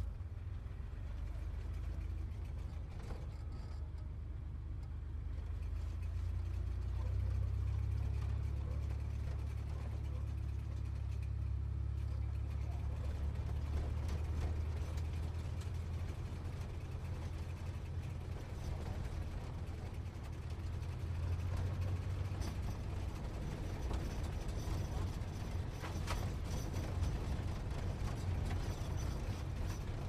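Sports car driving, its engine giving a steady deep rumble with no sharp revs; a wider hiss fills in over the rumble from about the middle on.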